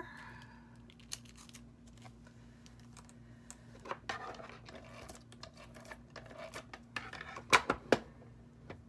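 Light rustling of a clear plastic embellishment packet, with scattered small clicks and taps as paper-craft pieces are handled and set down on a cutting mat. A few sharper taps come near the end.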